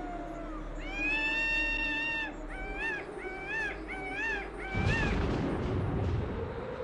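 Crow cawing: one long caw, then four short, arching caws. About five seconds in, a rumbling whoosh comes in under the last caw.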